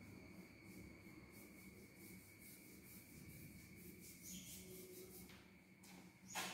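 Near silence: faint room tone with a steady high-pitched whine and a low hum, light faint scratches, and one short knock just before the end.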